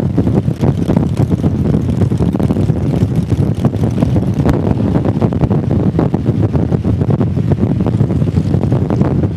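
Motorcycle engine running steadily at road speed, heard with wind buffeting the microphone.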